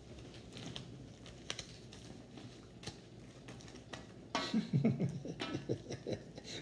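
UNO playing cards being handled: soft scattered clicks and taps of cards against each other and on the plastic-covered table as hands are picked up and sorted. About four seconds in, a person's voice murmurs briefly.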